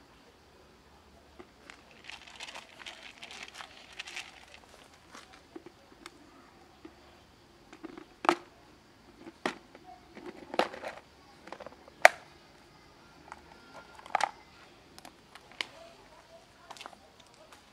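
Plastic food box with a clip-lock lid being handled: a crinkling rustle for a few seconds, then several sharp plastic clicks and knocks, the loudest about twelve seconds in, as the lid is unclipped and the box is set down.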